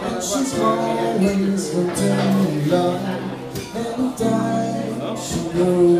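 Live band playing a song, with held chords changing every second or so.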